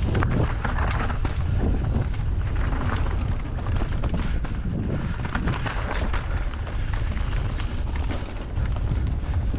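Canyon Strive enduro mountain bike riding fast down a rough trail: tyres crunching over stones and the bike rattling and knocking, many short clatters in a row, under a steady rumble of wind on the microphone.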